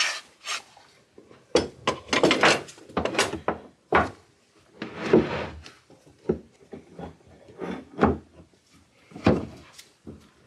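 A steel pipe clamp being handled and fitted against a plywood cabinet: a run of irregular wooden knocks and metal clatter, with a scraping slide about five seconds in.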